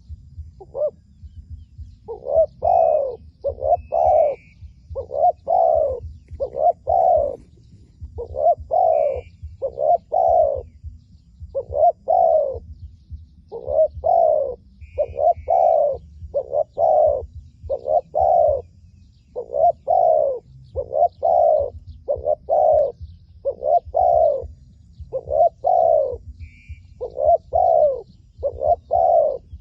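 Dove cooing over and over, short low notes in groups of two or three repeating every second or two, with a few faint higher chirps from small birds.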